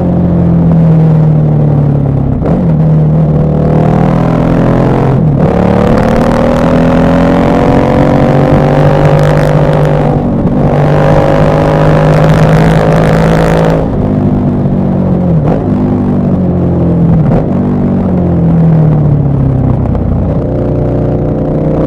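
KTM 1190 Adventure R's LC8 V-twin engine pulling under load while riding, its pitch climbing and breaking off sharply at several gear changes. In the last third the pitch falls in steps as the bike slows and changes down.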